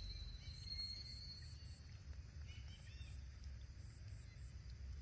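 Faint outdoor ambience: a steady low rumble under a thin, high, steady whine that fades out in the first half, with a few soft chirps about two and a half seconds in and faint, evenly repeating high ticks throughout.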